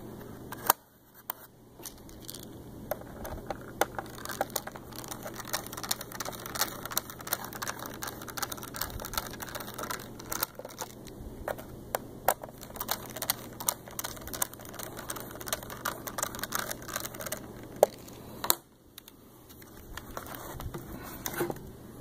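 Laptop keys clicking in quick, irregular runs as someone types on a freshly reseated Toshiba Portégé R830-series keyboard to test it. The typing pauses briefly about a second in and again near the end.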